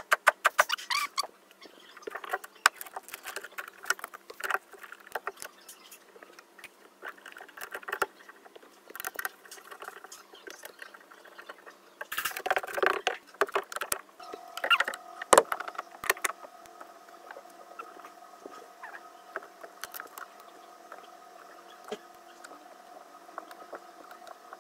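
Scattered clicks, taps and scrapes of hand work on a car door's lock actuator and linkage as it is fitted back in, with a cluster of quick knocks about halfway through. A faint steady hum comes in just past halfway.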